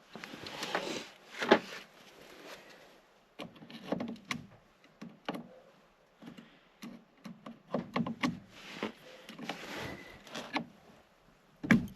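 Irregular clicks, knocks and scrapes of a socket wrench and metal bolts and parts being worked by hand on a winch switch box, with a few louder clanks.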